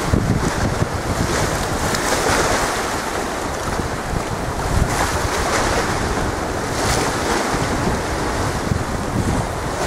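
Strong wind buffeting the microphone in irregular gusts, over the wash of choppy, whitecapped sea.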